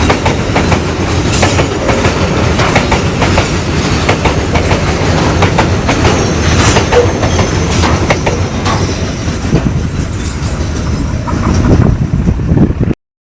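Babaranjang coal train's wagons rolling past, wheels clacking over rail joints in a dense, irregular run of clicks and rumble. The sound cuts off abruptly near the end.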